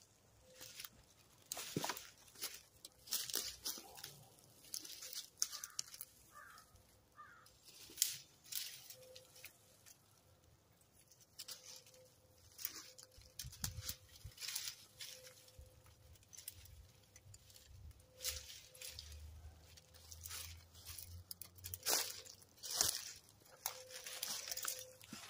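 Irregular rustling, crackling and snapping of branches and brush, in uneven clusters that are busiest in the first third and again near the end.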